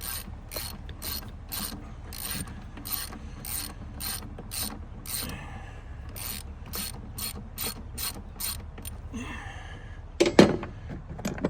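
Socket ratchet wrench clicking in steady strokes, about two a second, with a short pause midway. A loud clunk comes about ten seconds in.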